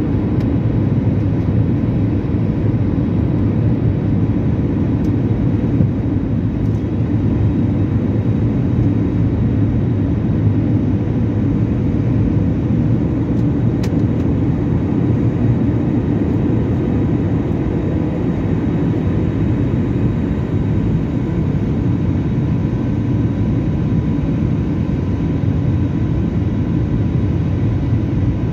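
Airliner's wing-mounted jet engines and rushing air heard from inside the passenger cabin during the climb after takeoff: a steady low rumble with a faint, even whine over it.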